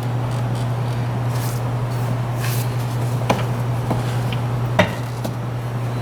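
Plastic air box being handled and lined up on its rubber mounts, giving a few light knocks and clicks about halfway through and again near the end, over a steady low hum.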